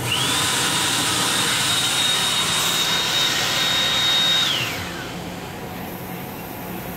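Built-in hand dryer in an M8 railcar restroom blowing. Its motor whine rises sharply at the start and holds steady over a loud rush of air for about four and a half seconds, then winds down and stops.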